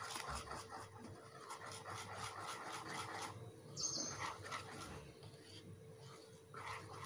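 Hand wire whisk beating flour into a wet cake batter in a bowl: a quick, rhythmic scraping of about five strokes a second that grows weaker after about three seconds. A short high-pitched chirp sounds about four seconds in.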